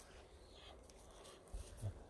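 Near quiet: a faint low rumble, with a couple of soft thumps near the end.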